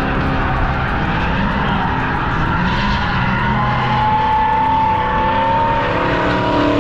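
Car engine running hard at high revs as the car drifts through a track bend. From about halfway in, a tyre squeal rises slowly in pitch.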